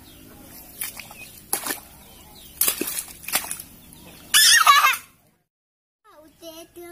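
A chicken gives a loud, wavering squawk of under a second, after a few short knocks. A few soft clucking notes follow near the end.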